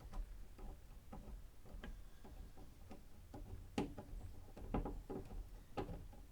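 A hose clamp being tightened by hand with a screwdriver: a run of irregular light clicks, about two or three a second, with a couple of sharper ones near the end.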